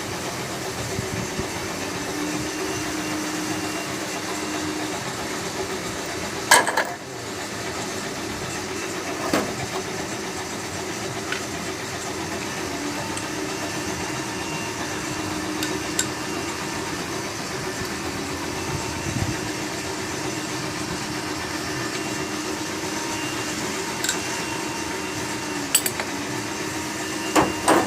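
Scattered metal clinks and knocks of hand tools and engine parts during a car engine teardown, with one louder knock several seconds in, over a steady background hum and hiss.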